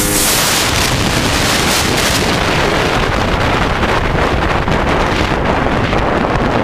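Heavy wind buffeting on a helmet-mounted camera's microphone as a racing motorcycle is ridden at speed, with the engine only faintly heard underneath. The high hiss of the wind thins out in the second half as the bike enters a bend.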